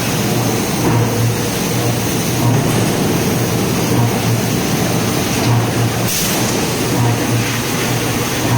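Forging machinery running: a constant mechanical noise with a steady low hum that swells and fades unevenly, about once a second.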